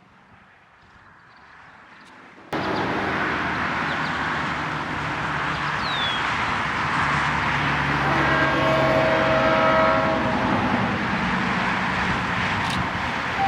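Faint outdoor ambience, then an abrupt jump a few seconds in to a loud freight train: an EMD SD40 diesel locomotive's engine with rolling-train noise. Partway through, the steady chord of its air horn starts to sound and grows stronger toward the end.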